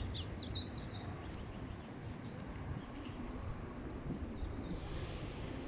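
Small birds chirping: a quick run of short high chirps in the first second and a few more about two seconds in, over a steady low background rumble.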